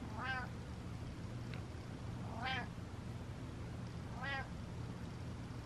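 A domestic cat meowing: three short, high meows about two seconds apart.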